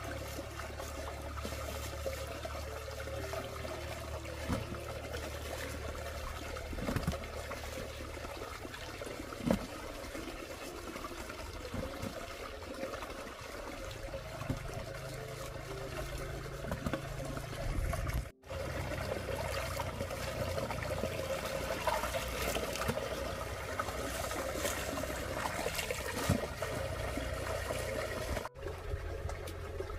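Water trickling and splashing in a small concrete irrigation ditch as peeled tubers are rinsed in it by hand, with a few light knocks from the tubers being handled. The sound briefly cuts out twice.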